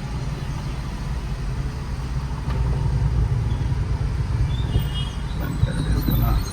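Low, steady rumble of a Skoda Slavia on the move, heard from inside the car. A few short, faint high tones come near the end.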